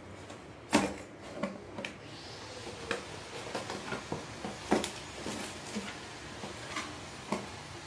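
Small cardboard box handled and opened by hand: scattered taps, knocks and scrapes of card as it is turned over and its flaps are pulled open, the sharpest knocks about a second in and near the five-second mark.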